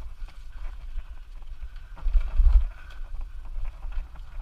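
Bike-mounted camera jolting along a rough dirt trail: wind buffeting the microphone, with rattles and knocks from the bumps. The rumble is heaviest about halfway through.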